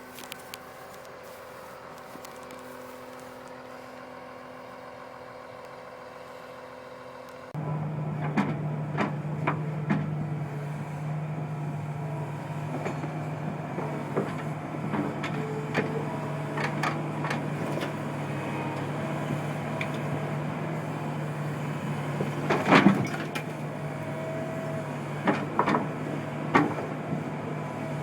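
A Caterpillar 973C track loader's diesel engine running steadily. About seven seconds in, the sound jumps abruptly louder to a heavier drone, with frequent sharp clanks and knocks from the machine working, and one loudest crash past the middle.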